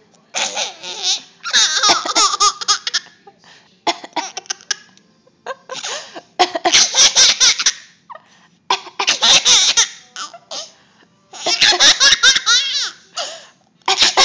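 A baby laughing hard in about half a dozen bouts of a second or two each, with short pauses between: laughter set off by someone's coughing.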